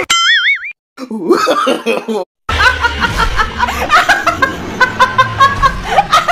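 A woman laughing hard in quick repeated bursts, starting about two and a half seconds in. Before it, a brief high warbling squeal and a short stretch of voice.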